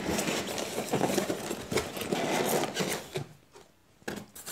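Cardboard box being opened by hand: scraping, rubbing and small clicks of cardboard flaps and packing for about three seconds. A short quiet gap follows, then a brief rustle near the end.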